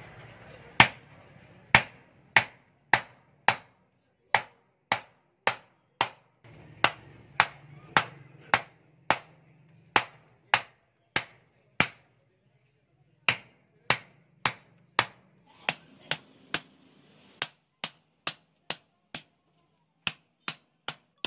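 Hammer striking a hole punch through a metal sheet: sharp metallic blows at a steady pace of roughly one every half-second or so, punching rows of sieve holes, with a brief pause about twelve seconds in.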